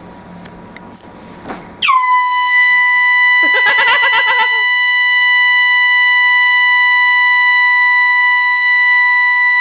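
Canned air horn taped to a chair, set off by someone sitting on it: one long continuous blast starts about two seconds in, dipping briefly in pitch at the onset, then held steady. A person cries out briefly over it a couple of seconds after it starts.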